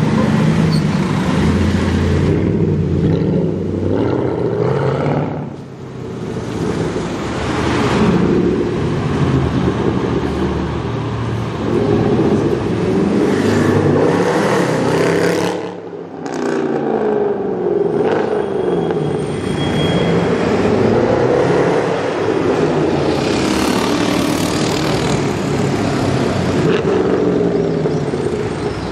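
Mercedes-Benz C63 AMG's 6.2-litre V8 with its catalytic converters removed, accelerating and revving through the gears, its pitch rising and falling again and again, loud throughout. It drops away briefly twice, about five and a half and sixteen seconds in.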